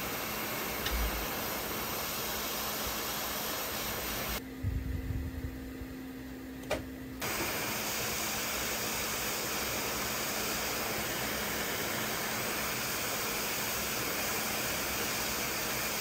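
Steady hiss of blowing air, as from a hot-air rework station used to swap small resistors on a graphics card board. About four seconds in, the hiss drops out for roughly three seconds, leaving a low steady hum with a few soft knocks and one sharp click, then the hiss comes back.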